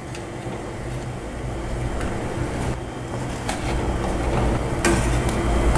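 Water boiling in a stainless steel pot: a steady bubbling rumble that slowly grows louder, with a couple of light clicks as a metal spoon lowers quail eggs into it.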